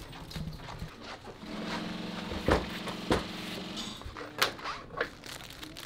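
Sewing-workshop noise: a machine hum starts about a second and a half in and runs for a couple of seconds, with four sharp knocks spread across the middle and later part.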